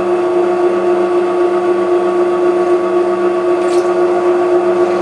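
WEN 4214 variable-speed drill press running at its low setting of about 510 RPM, a steady motor hum, as the bit is fed down onto a small piece of wood.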